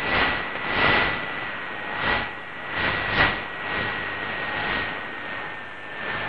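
Shortwave static from a Qodosen DX-286 portable radio tuned to 11530 kHz: a hiss that swells and fades irregularly, with a steady high whistle running through it as the station's transmission ends.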